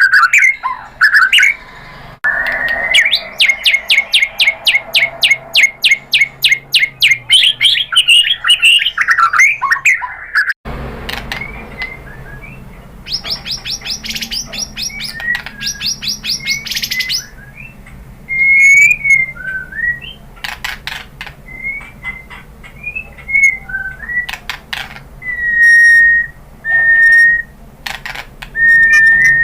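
White-rumped shama (murai batu) singing: a long run of rapidly repeated notes, about four a second, then an abrupt switch to a series of short clear whistles broken by sharp clicking notes.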